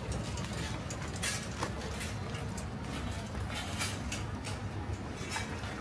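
Busy market ambience: a steady low rumble with scattered clicks and knocks.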